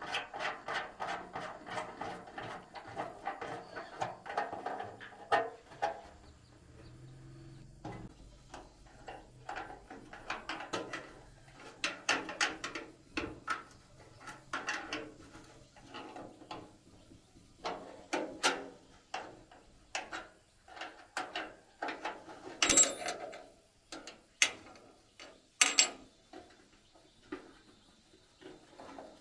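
Hand scrubbing and scraping inside the sheet-metal hopper of a rice grain separator. For the first several seconds it comes as rapid scraping strokes, then as irregular scrapes and knocks, with two sharp knocks on the metal later on.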